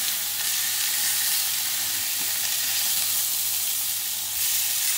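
Rump steaks sizzling steadily in a hot cast-iron grill pan as they are turned over with tongs, the hiss swelling slightly as they are laid back onto the ridges near the end.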